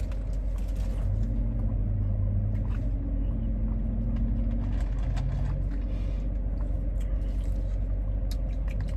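Car engine idling, heard inside the cabin as a steady low rumble, with a few faint ticks over it.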